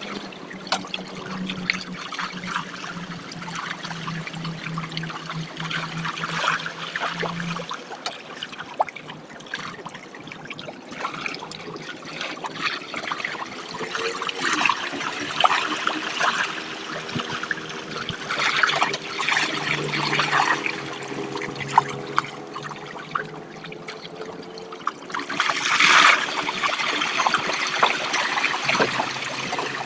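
Water pouring and trickling, with many small clicks and knocks and a faint steady hum underneath; it gets louder for a moment about 26 seconds in.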